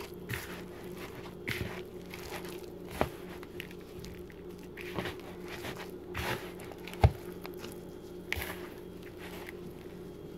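A hand squeezing and mixing flour and water into float bake dough in a plastic bowl: irregular soft crunching and squishing, with several sharp knocks, the loudest about seven seconds in. A steady low hum runs underneath.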